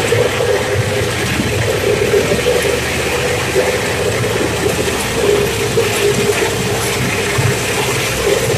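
Two-wheel hand tractor's single-cylinder diesel engine running steadily as it is driven along, with a steady whine ("nging") riding over the engine noise.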